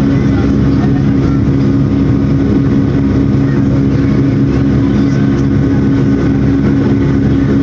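Airliner turbofan engines and airflow heard from inside the cabin beside the wing during the climb after takeoff: a loud, steady drone with a constant low hum of several tones over a rushing noise.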